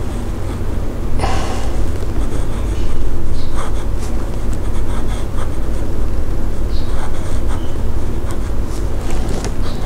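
Fountain pen's 14K gold soft fine nib scratching across notebook paper in short strokes while writing, with a slight feedback as the tines catch on the paper fibres. A steady low rumble runs underneath, and a short breath-like hiss comes about a second in.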